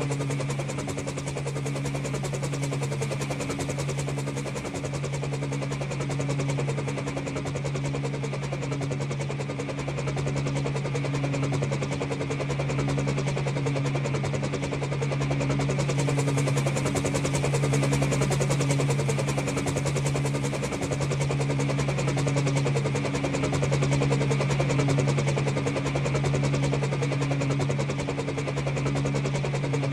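Helicopter flying, its rotor blades beating in a fast, even rhythm over a steady low engine hum. It grows a little louder and softer in slow swells.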